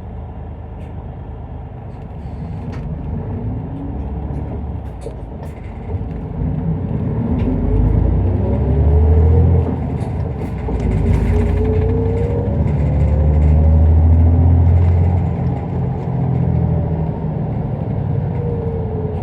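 Isuzu Erga Mio city bus's diesel engine heard from inside the cabin as the bus gathers speed. The engine note rises in pitch in several climbs, with a low rumble that grows louder from about six seconds in. A few light clicks or rattles come early.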